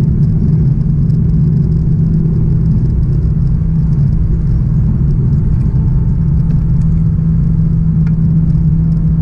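Cabin noise of an Airbus A350-900 during takeoff climb-out: its Rolls-Royce Trent XWB turbofans at takeoff thrust, heard through the fuselage as a steady low rumble with a steady hum.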